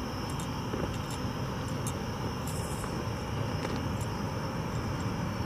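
Faint, irregular footsteps on the ballast and ties of a railroad track over a steady outdoor night hiss and hum.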